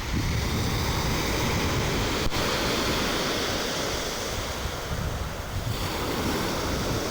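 Sea surf washing on the shore, with wind buffeting the microphone in a low, fluttering rumble.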